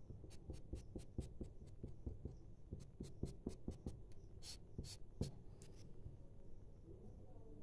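Felt-tip marker drawing quick short dashes on paper: a rapid run of light ticks, about three or four a second, that stops near the end.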